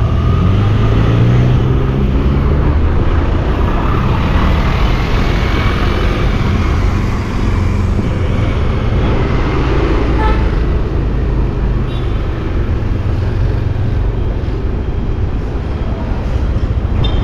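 City street traffic: vehicle engines running close by over steady road noise, one engine rising in pitch as it speeds up in the first couple of seconds.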